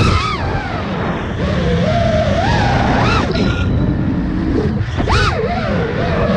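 FPV quadcopter's brushless motors whining, their pitch sweeping up and down with the throttle as the drone flips and rolls, with sharp rises near the start, about three seconds in and again about five seconds in. A steady low rush of wind runs underneath.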